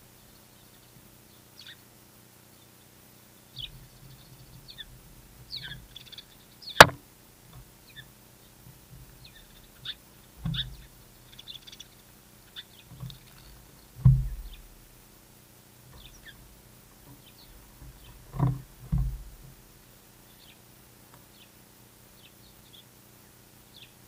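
Small birds chirping on and off with short, high calls. A sharp click about seven seconds in is the loudest sound, and several low thumps come later.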